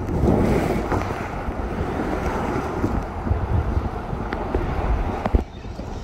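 Rushing water and wind noise as an inflatable raft tube slides down a water slide, with a heavy low rumble and a few small knocks.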